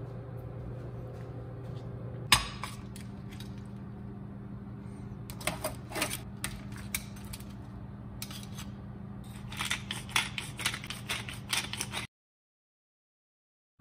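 Kitchen handling sounds as broiled lobster halves are moved onto a plate: one sharp knock about two seconds in, then scattered clicks and scrapes. Near the end a quick run of grinding clicks from a pepper grinder, over a steady low hum, before the sound cuts off abruptly.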